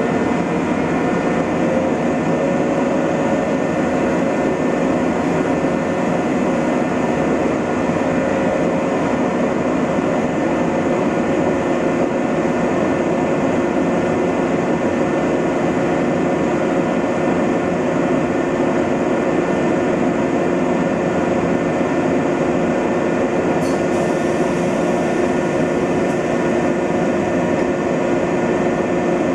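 Electric trains standing at a station platform with their onboard equipment running: a steady hum made of several held tones over an even rumble.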